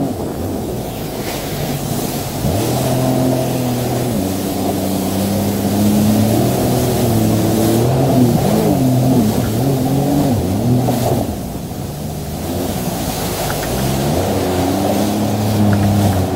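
Yamaha jet ski's engine revving and pulling away through shallow surf, its pitch rising and falling with the throttle, over the rush of water spray. The engine eases off briefly about eleven seconds in, then picks up again.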